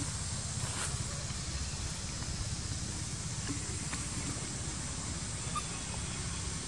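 Steady low rumble of outdoor background noise, with a few faint ticks and a couple of faint short chirps.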